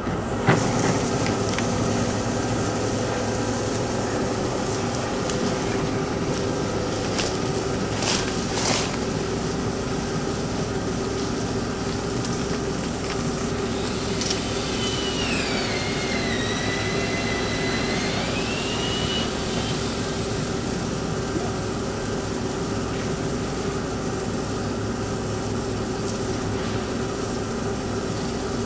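Insulation blowing machine running steadily, with insulation being blown through a hose into a house's wall cavities: a continuous mechanical drone with a held hum. A few sharp knocks come about a quarter of the way in, and midway a whistling tone slides down and back up over several seconds.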